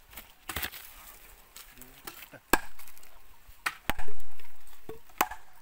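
Hard wooden knocks: a heavy log pounded down onto wooden stakes set in a stump, several separate strikes at uneven intervals, the loudest about four seconds in.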